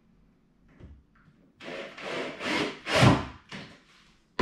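Several short scraping and rubbing sounds of hardware being worked against a wooden wardrobe panel while a clothes rail is fitted, the loudest about three seconds in. No drill motor runs.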